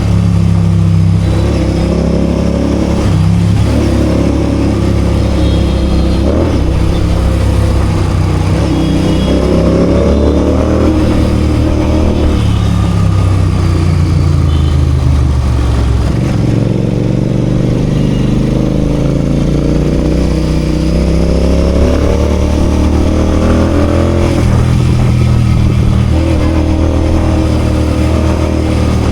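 Royal Enfield GT 650's 648 cc parallel-twin engine pulling through the gears. Its pitch climbs and drops back several times as it accelerates and shifts, with one long climb through the second half.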